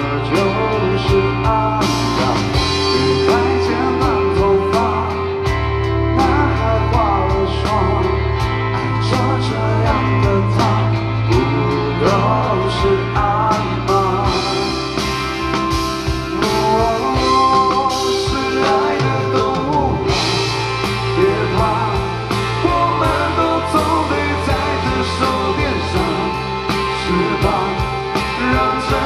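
Rock band playing live, with drums, bass guitar, electric guitars and a lead singer.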